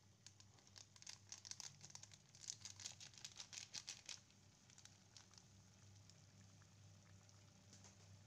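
Small paper sachet of ground pepper being shaken and tapped over a pan: a quick run of faint crinkling ticks for about three seconds, then it stops, with a low steady hum underneath.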